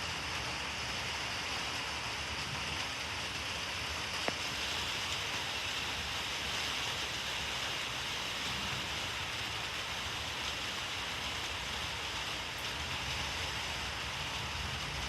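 Steady rain falling, with a single sharp click about four seconds in.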